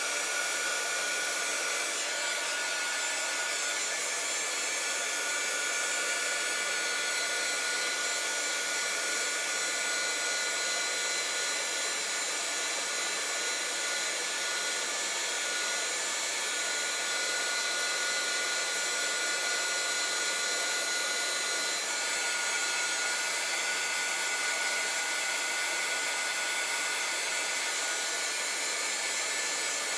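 Craft heat gun running steadily on high: a constant hiss of blown air with a thin, unchanging whine over it.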